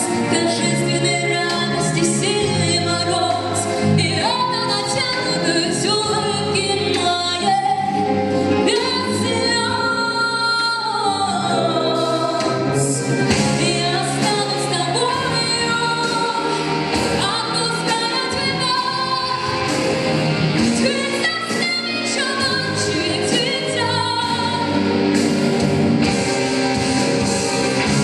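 A woman singing a song over full instrumental backing, her voice gliding between sustained notes.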